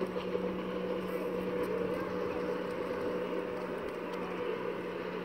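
Steady drone of a motorboat engine out on the lake, an even hum that holds the same pitch throughout.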